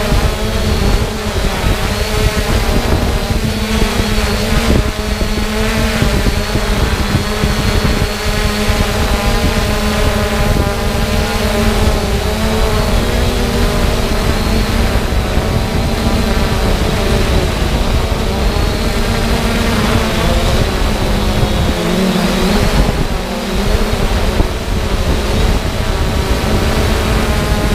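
Quadcopter drone's electric motors and propellers whining, several pitches shifting up and down together as the motors speed up and slow down, over steady wind rumble on the onboard microphone.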